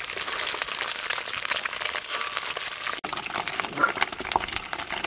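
Hot oil sizzling and crackling as shrimp and beaten duck egg fry in a wok. The sound breaks off abruptly about three seconds in, and lighter crackling follows.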